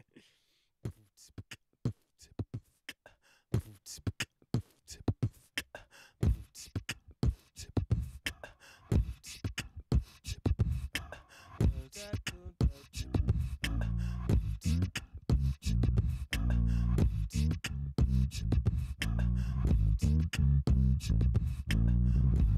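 Beatboxed mouth percussion, live-looped and layered on a loop station: sparse clicks and kicks at first, building into a denser beat, with a low vocal bass line coming in about halfway through.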